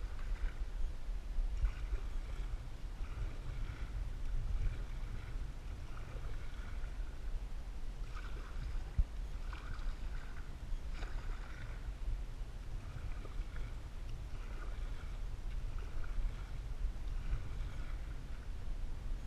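Canoe being paddled: paddle strokes in the water and water lapping at the hull, with splashes and drips recurring about once a second over a steady low rumble.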